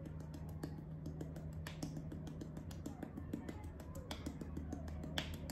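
Fingertips tapping lightly and quickly on a puffed-out cheek: a steady run of soft clicks, several a second.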